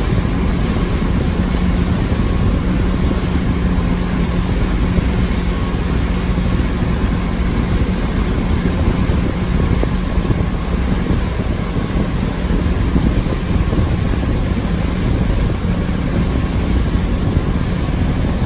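Regal 2665 express cruiser's sterndrive engine running steadily at cruising speed, a low, even drone, with wind rushing over the microphone and water noise from the hull.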